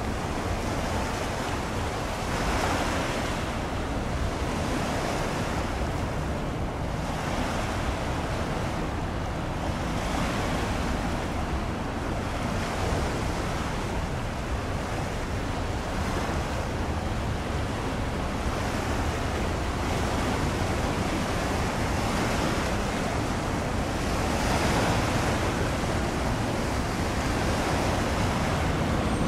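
Sea waves washing in steadily, surging every few seconds, with wind rumbling on the microphone.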